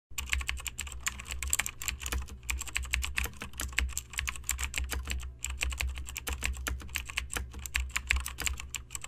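Rapid, irregular typing clicks, as on a keyboard, pausing briefly twice, over a steady low hum.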